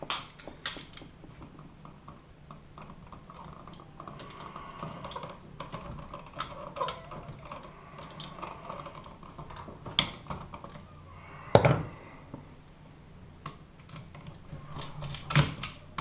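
Irregular small clicks and taps of a GFCI receptacle and its wires being handled in a wall electrical box, with a few louder knocks about ten, eleven and a half and fifteen seconds in.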